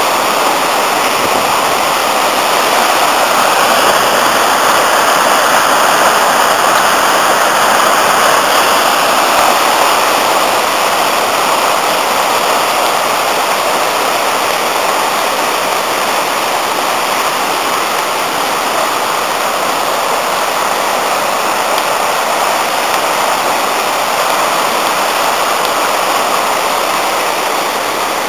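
River in spate after heavy rain, white water rushing over rocky rapids in a loud, steady wash of noise that swells slightly in the first third and then eases a little.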